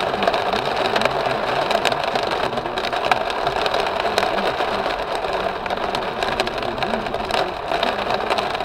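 Heavy downpour drumming on a car's roof and windshield, heard from inside the cabin: a dense, steady patter thick with sharp hits.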